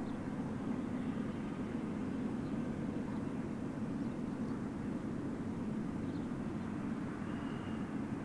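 Steady low rumble of distant engines, with no clear rhythm or clatter.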